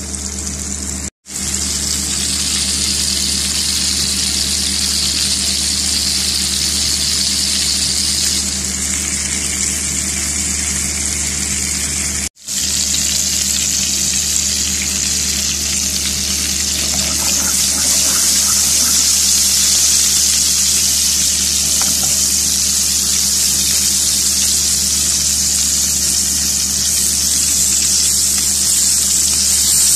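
Beef steak and garlic cloves sizzling as they sear in hot fat in a frying pan: a steady high hiss with a low hum underneath, cutting out briefly twice.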